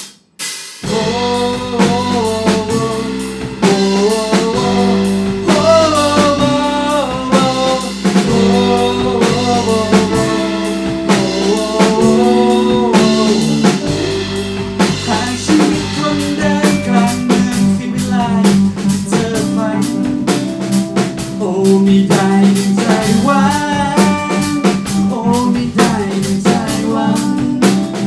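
A rock band playing a song live in a small room: drum kit, electric guitar and a male lead vocal, with the full band coming in within the first second.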